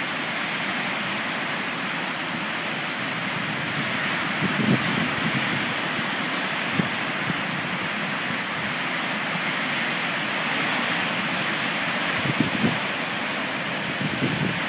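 Heavy waves on Lake Superior breaking along the shore in a steady rush of surf, with wind buffeting the microphone a few times.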